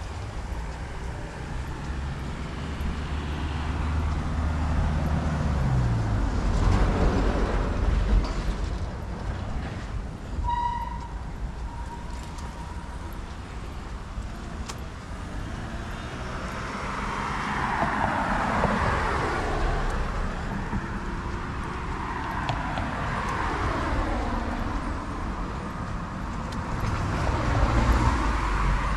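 Street traffic: cars passing on the road one after another, with an engine humming low for the first several seconds and a short high beep about ten seconds in.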